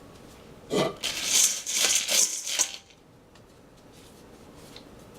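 Beans and pasta rattling against a pot for about two seconds, a dense run of small hard clicks and scrapes that then stops.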